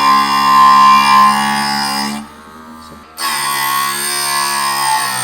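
Electric diamond sharpening grinder running with a steady whine against the saw blade's tungsten carbide tips, cutting out briefly about two seconds in and starting again a second later.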